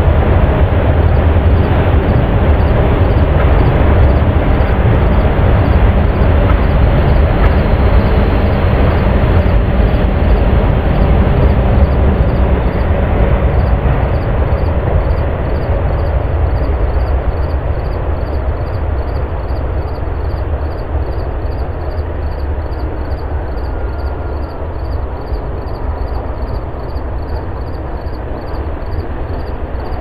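Loud, steady rumble of passing engine noise that slowly fades over the second half.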